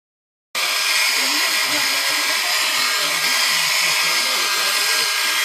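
Electric sheep-shearing handpiece running steadily with a high buzzing whine as it clips a sheep's fleece. It starts about half a second in.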